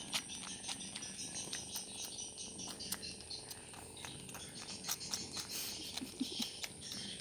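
Domestic cats purring, with many small irregular clicks running through.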